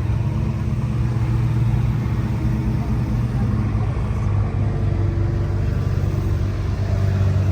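A car engine running with a low, steady rumble; its pitch drops slightly about three to four seconds in.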